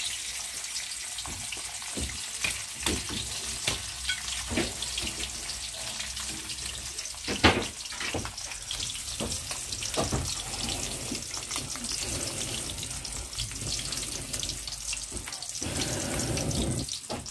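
Tilapia frying in hot oil in a wok: a steady high sizzle with scattered pops and crackles, one louder pop about halfway through.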